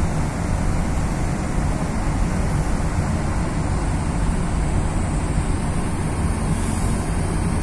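Steady low rumble of a car ferry's engines under way, mixed with wind across the microphone on the open deck.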